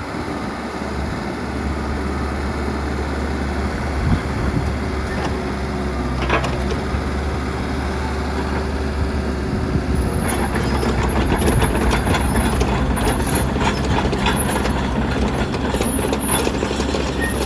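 Kubota KX161-3SZ midi excavator running with its diesel engine holding a steady hum. From about ten seconds in, a rapid clatter of clicks joins it.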